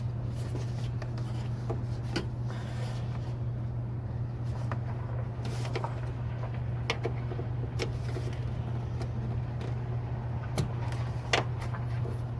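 Scattered plastic clicks and knocks as a halogen headlight bulb is twisted and pulled out of its housing, with a sharper knock near the end, over a steady low hum.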